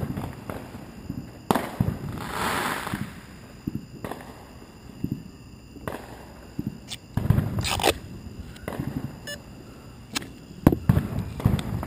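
Fireworks going off: irregular low booms and sharp cracks, with a hissing burst about two seconds in.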